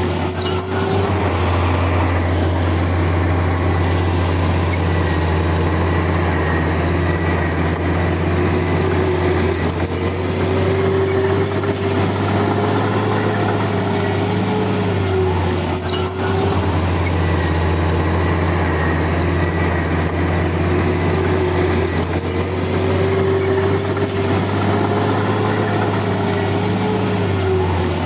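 Heavy diesel engine of a bulldozer running steadily under load, with a whining tone that rises and falls every ten seconds or so.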